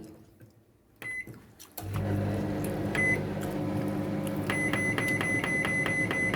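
Microwave oven: a single beep, then the oven starts running with a steady low hum. Over the hum comes another beep, then a quick run of keypad beeps, about four a second, as the cooking time is set.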